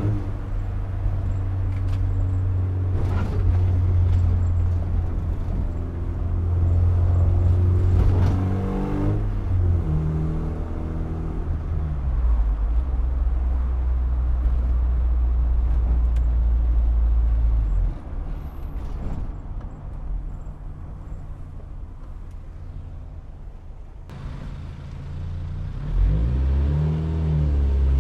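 1981 Volkswagen Rabbit pickup's four-cylinder engine heard from inside the cab while driving. It drones steadily and changes pitch with a gear change about nine seconds in. It goes quieter as the truck eases off around halfway, then picks up again, rising in pitch near the end.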